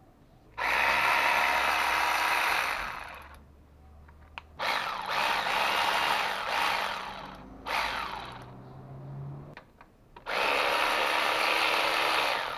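Cordless power tool spinning the bolts out of the Perodua Myvi's upper oil pan, running in three bursts of a few seconds each with short pauses between.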